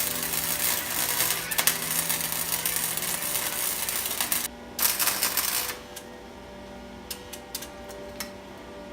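Welding arc crackling as steel seat brackets are welded on. One run lasts about four and a half seconds, then after a short break a second run of about a second, followed by a few scattered clicks.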